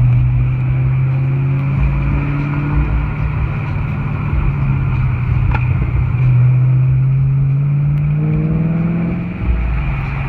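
2015 Camaro SS's 6.2-litre LT1 V8, fitted with headers and high-flow cats, idling with a steady drone. About eight seconds in its pitch climbs a little and falls back.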